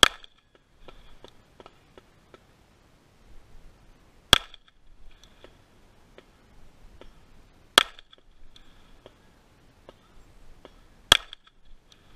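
Four single shots from a Glock pistol, each a sharp crack, spaced about three and a half seconds apart, with faint small clicks in between.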